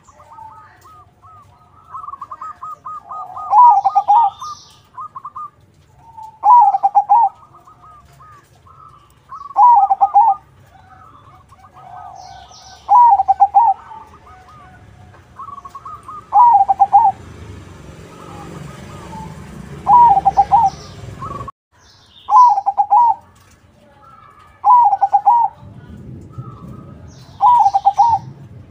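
Crossbred zebra dove (perkutut crossing) singing its loud cooing phrase over and over, about every three seconds, with fainter chirping of other birds between the phrases.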